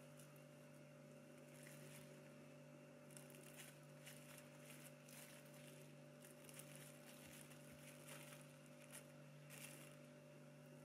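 Faint scraping and crinkling as a knife saws through a loaf cake lying on plastic cling film, in short irregular strokes over a steady low hum.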